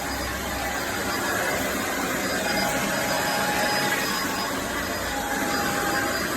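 Eureka Flash corded stick vacuum cleaner running steadily while vacuuming carpet, a constant rushing motor-and-airflow noise with a faint whine.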